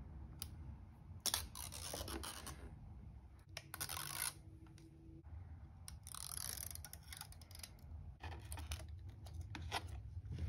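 Adhesive liners and protective film being peeled off a replacement iPad Air digitizer glass, heard as several short stretches of tearing, scratchy noise. A low steady hum runs underneath.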